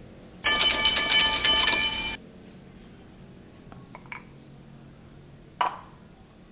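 Electronic chime sound effect of several steady tones sounding together for about a second and a half, then stopping abruptly; it is the notification jingle that goes with a subscribe-and-bell overlay. Later come a faint click and then one sharp tap with a short ring.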